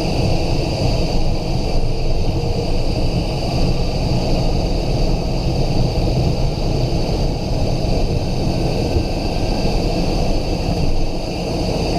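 Cockpit noise of a Cessna Citation XLS business jet at takeoff power: its twin Pratt & Whitney Canada PW545 turbofans run with a steady high whine over a constant rumble of engine and airflow.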